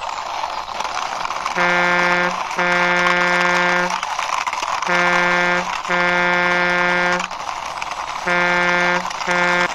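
Truck horn honking in three pairs of blasts, each pair a short blast then a longer one, over a steady hiss.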